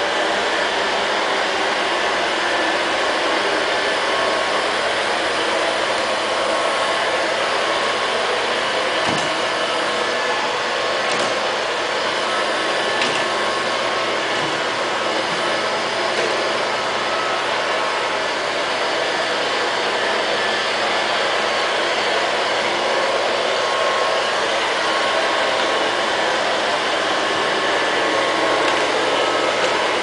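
LL-302 robot vacuum cleaner running: the steady whirring hiss of its suction fan and brushes, with a few faint clicks about a third of the way through.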